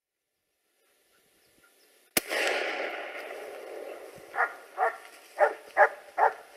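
A single gunshot about two seconds in, its report echoing and fading over the next two seconds. Then a hunting dog barks in a steady series, five barks at about two or three a second.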